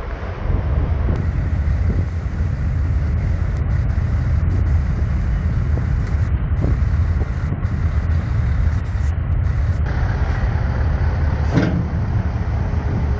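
Steady, loud, low engine rumble, with a short knock about two-thirds of the way in.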